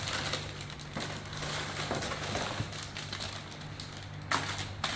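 Rustling and crinkling of packaging as fan parts are lifted out of their box, with a louder rustle near the end over a steady low hum.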